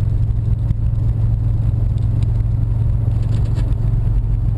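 Freshly rebuilt car engine running steadily with a low drone inside the cabin, with faint irregular clatter on top. The owner suspects failing crankshaft bearings, and the passenger a con rod.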